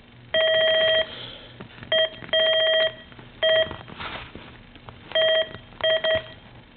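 Steady electronic beep tone from transistor-test equipment, sounding as test leads are clipped onto a transistor that is shorted. It cuts in and out about seven times, each burst lasting from a split second to under a second.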